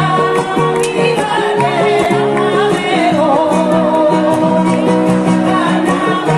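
A woman singing a carnival copla with a wavering vibrato on held notes, accompanied by a strummed Spanish guitar.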